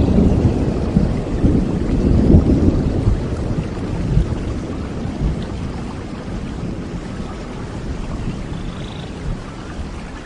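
Steady rain with a roll of thunder that is loud at first and fades away over the first half.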